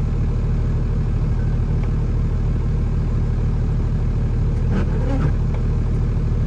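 Kenworth T370 tractor's PACCAR diesel engine idling steadily, a low drone heard from inside the cab with the truck parked.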